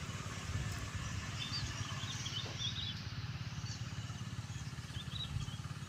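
A small engine running with a low, steady rumble. Small birds chirp in a quick run about two seconds in and once more near the end.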